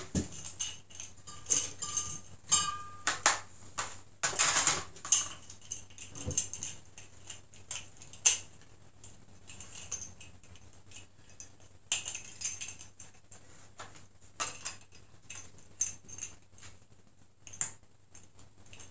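Small metal parts of swing-top bottle caps (wire bails and collars) clinking and rattling as they are handled and fitted onto a glass wine bottle, in irregular clicks and jingles with short pauses between.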